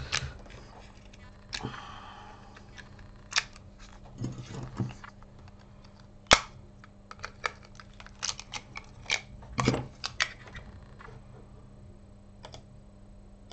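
Small clicks, taps and scrapes of an iPhone 6 logic board being prised out of its aluminium housing with a plastic pry tool, with a short scraping stretch about two seconds in and one sharp click a little over six seconds in.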